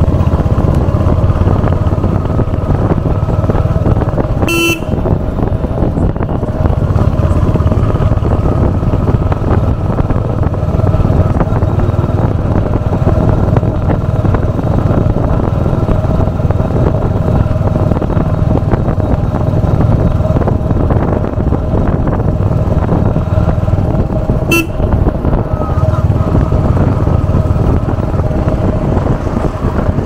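Royal Enfield Hunter 350's single-cylinder engine running steadily through its stock exhaust while under way, with two short horn toots, about five seconds in and again twenty seconds later.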